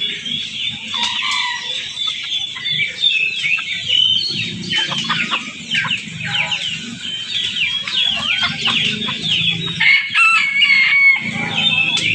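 Many caged birds chirping and calling at once in a dense, overlapping chorus of short high calls, over a steady low rumble.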